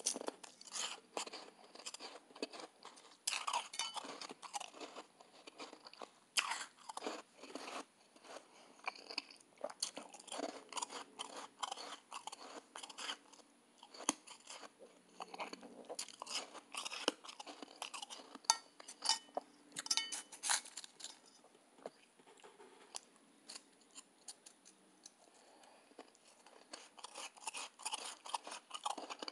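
A person chewing mouthfuls of soft, powdery blender ice: crunching in clusters of fine crackles, with a quieter stretch about two-thirds of the way through before the crunching picks up again.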